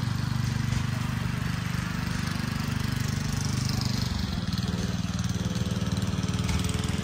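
An engine running steadily with a fast, even pulse; its tone shifts slightly about four and a half seconds in.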